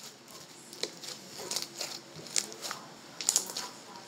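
Slime being squeezed and worked in the hands, giving a string of sharp little clicks and pops at uneven intervals.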